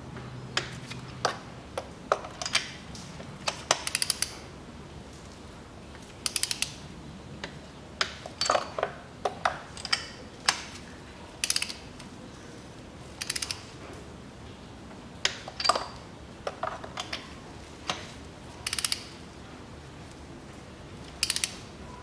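Ratcheting torque wrench clicking as spark plugs are tightened down, in short quick runs of clicks and single clicks spread through.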